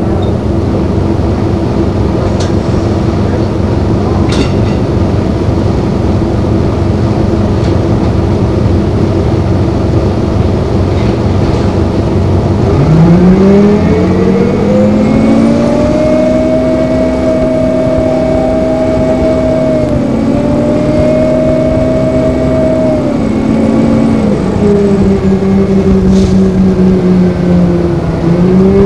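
2002 NABI 40LFW transit bus with a Detroit Diesel Series 50 four-cylinder diesel: a loud, steady drone that is mostly the cooling fan, with the engine barely heard under it. About halfway through a whining tone rises in pitch and holds, then drops about four-fifths of the way in.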